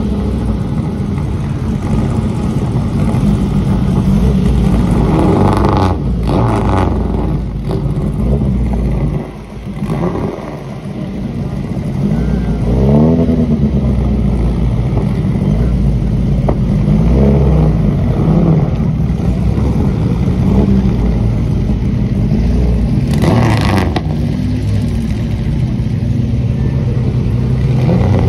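Engines of several 1950s open sports racing cars running as the cars pass one after another at low speed. Now and then a throttle blip rises and falls in pitch.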